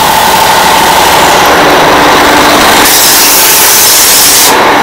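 Darjeeling Himalayan Railway narrow-gauge diesel toy train passing close by, its locomotive engine running loudly. About three seconds in, a loud hiss lasts for over a second as the coaches go past.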